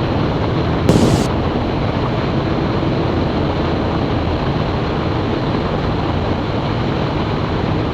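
Steady in-flight cockpit noise of a Zenith CH 650 light aircraft: its UL Power UL350i air-cooled four-cylinder engine running at reduced power, mixed with wind rush. A short burst of sound comes about a second in.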